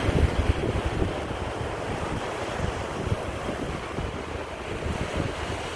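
Ocean surf breaking and washing up onto a sandy beach, a steady rushing wash, with wind buffeting the phone's microphone in uneven low gusts.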